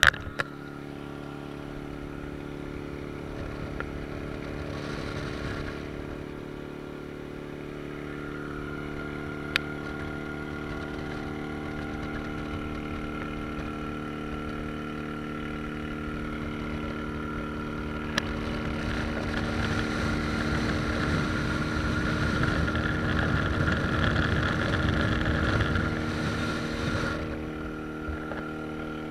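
Steady engine drone and tyre and road noise heard from inside a car moving at speed beside another car. The noise swells from a little past the middle for several seconds, then falls back near the end.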